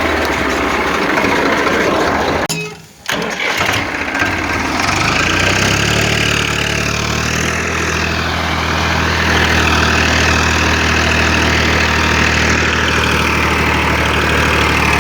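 A vehicle engine running, with a short drop-out about three seconds in; from about six seconds it settles into a steady, even idle.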